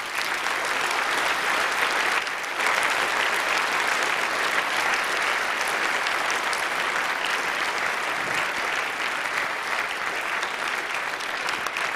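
Audience applauding: dense, steady clapping from a large crowd of listeners.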